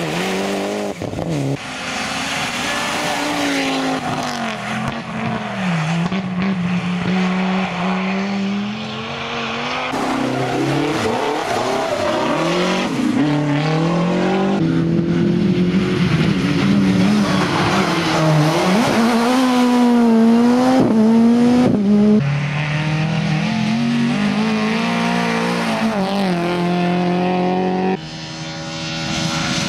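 Rally car engines at full throttle, revving up and dropping back through gear changes, with a faint tire squeal. Several cars are heard one after another, so the engine note changes abruptly a few times.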